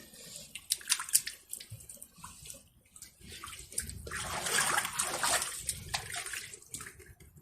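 Bare feet wading through standing floodwater, splashing and sloshing in uneven bursts, with the longest surge of water noise from about four to six seconds in.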